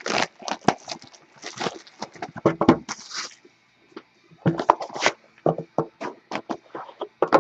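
Crinkling, crackling plastic shrink wrap and scraping, clicking cardboard as a sealed box of trading cards is unwrapped and opened, with a short pause about halfway through.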